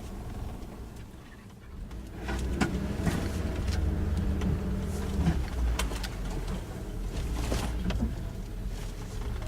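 Suzuki Jimny's engine pulling off-road, getting louder about two seconds in, with several sharp knocks along the way.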